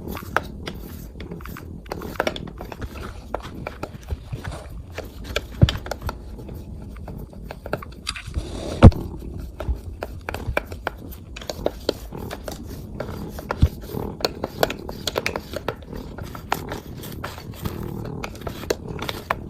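A cat purring steadily while a sticky lint roller is rolled over its fur, the tape crackling and scraping in many short ticks, with a few louder knocks.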